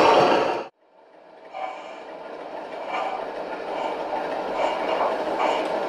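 Gauge 1 model train running on the layout's track. A loud rolling rumble breaks off abruptly under a second in. Then the running noise of a model steam locomotive and its coaches fades in and grows, with regular short clicking beats.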